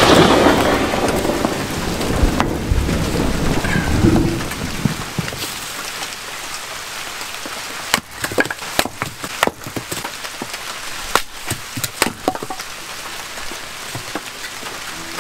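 Steady rain falling, with irregular sharp drops striking a surface, clustered in the second half; the tail of background music fades out over the first few seconds.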